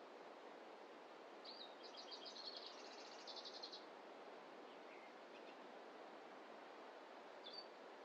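Quiet forest ambience, a faint steady rush, with a small songbird singing a rapid run of high notes that speeds into a trill about a second and a half in, lasting about two seconds. A few soft calls follow, and a single short chirp comes near the end.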